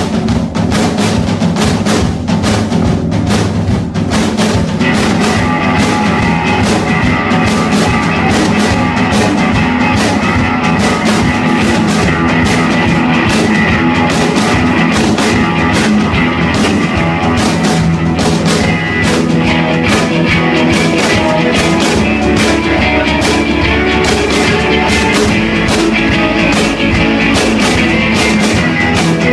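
Live rock band opening a song with drum kit and guitars, loud and steady, the arrangement growing fuller about five seconds in. Poor, rough-sounding live recording.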